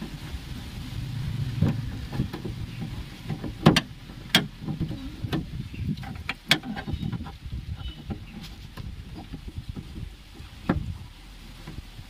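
Scattered sharp metallic clicks and knocks as a car's lock latch and its linkage rods are handled and fitted, with a low background rumble.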